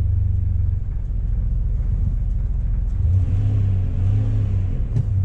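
Dodge Ram 1500 van engine idling steadily in park on freshly changed oil, growing a little louder for a couple of seconds about three seconds in.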